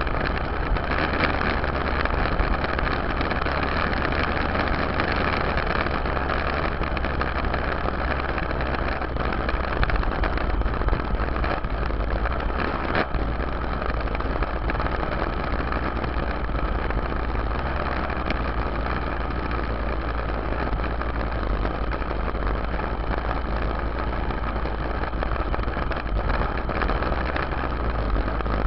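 Yamaha YZ dirt bike engine running steadily as the bike is ridden, heard up close from the rear fender.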